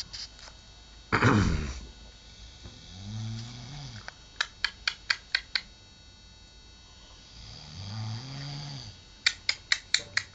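People snoring: a loud hoarse snort about a second in, then drawn-out snores that rise and fall in pitch. After each snore comes a quick run of about six sharp clicks, some four a second.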